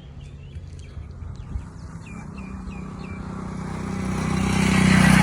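Small birds chirping a run of short, falling calls, then a motor vehicle's engine humming and growing steadily louder as it approaches, loudest at the end.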